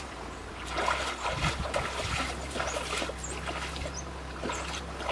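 Hands splashing and swishing in shallow river water: a run of small irregular splashes and trickles.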